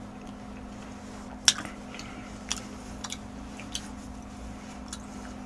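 A few short, sharp clicks and smacks of someone eating, the loudest about a second and a half in, over a steady low hum.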